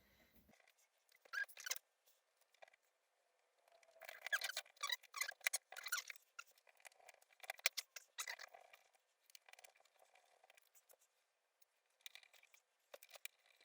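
Small plastic and metal laptop parts being handled and fitted together during reassembly: scattered sharp clicks, taps and brief scraping. They come thickest from about four to six and a half seconds in, with a few more clicks near the end.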